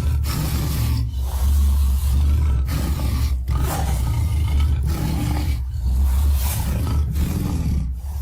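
Tyrannosaurus rex roar sound effect: a series of deep, rumbling roars and growls, one after another with short breaks, each a second or two long.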